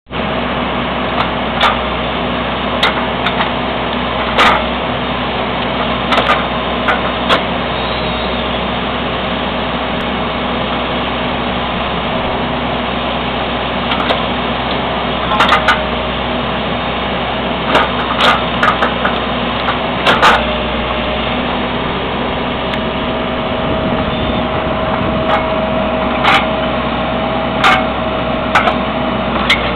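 Backhoe engine running steadily while it drives a hydraulic wood splitter, with a steady whine that grows stronger in the second half. Logs split with repeated sharp cracks and snaps at uneven intervals.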